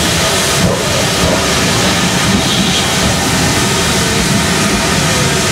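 Passenger coaches of a steam-hauled train rolling past close by: a steady rush of wheels running on the rails.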